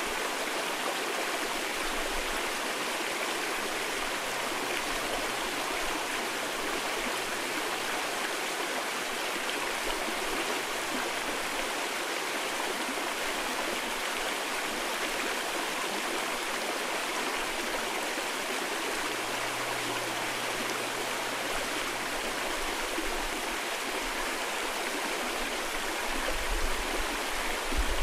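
Mountain stream rushing steadily over rocks in a valley, an even, unbroken water sound. A low rumble builds near the end.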